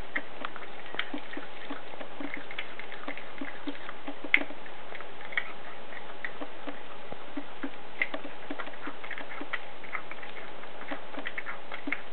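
A cat chewing on a whole raw rat: irregular small crunches and clicks of teeth working through flesh and bone, the sharpest about four seconds in, over a steady hiss.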